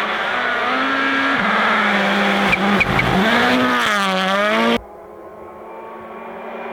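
Rally car engine at high revs, the pitch rising and dipping repeatedly as the driver shifts and lifts, with a few sharp cracks near the middle. About five seconds in it cuts off abruptly to a quieter, steady engine sound.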